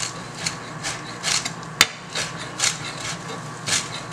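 Chef's knife chopping fresh parsley on a cutting board: a steady run of knocks, about two to three strokes a second, with one sharper, louder knock a little under two seconds in.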